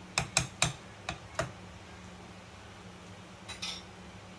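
Metal potato masher knocking against a steel pressure-cooker pot while mashing pav bhaji: five sharp knocks in the first second and a half, then a faint clatter near the end. A low steady hum runs underneath.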